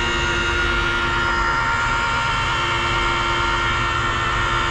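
Handheld rotary polishing machine running steadily with its pad on glossy black yacht paint, a constant whine.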